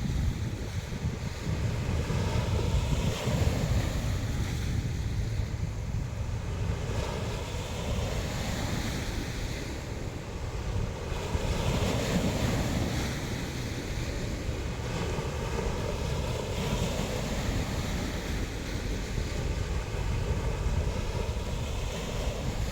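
Sea waves washing onto the shore, swelling and fading every few seconds, under a steady low rumble of wind buffeting the microphone.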